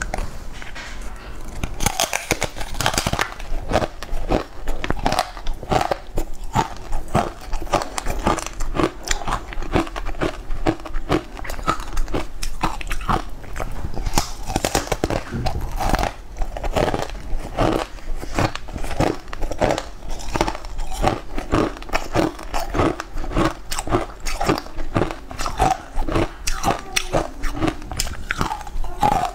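Close-up crunching and chewing of ice coated in green powder: repeated crisp bites and crunches, several a second.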